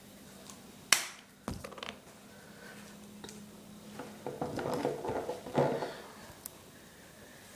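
Hands working on a small plastic RC boat: a sharp click about a second in and a lighter knock after it, then a stretch of crinkling and rustling, like tape and parts being handled.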